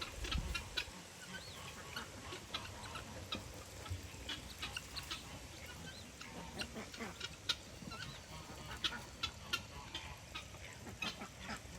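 Poultry in a farmyard calling faintly: short chirps and clucks scattered throughout.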